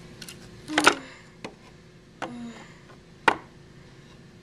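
A handful of sharp plastic knocks and clacks from dolls and a toy dollhouse being handled, about five in all, the loudest about a second in.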